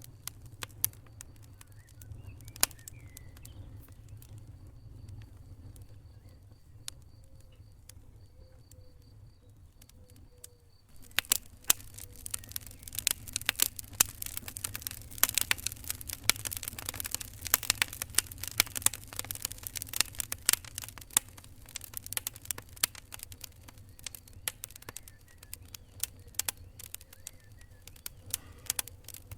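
Fire crackling with sharp pops over a low steady rumble. The pops are sparse at first, then come much thicker and louder from about eleven seconds in. A faint high whine can be heard between about four and eleven seconds in.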